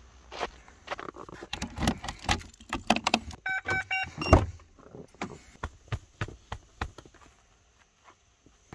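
Handling at the side of a camper van: scattered clicks and knocks, a quick run of short electronic beeps a little past three seconds in, then a solid thunk of a door shutting just after four seconds.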